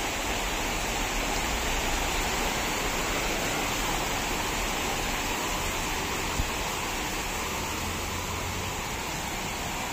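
Steady rushing noise of a heavy storm: strong wind and rain, with a low rumble underneath.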